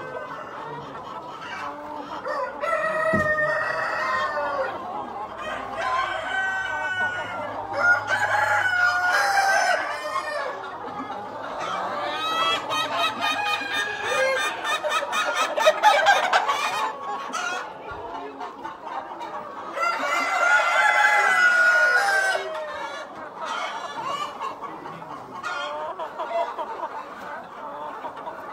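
A flock of Jubilee Orpington chickens clucking and calling, many birds at once, with louder bouts of calls every few seconds.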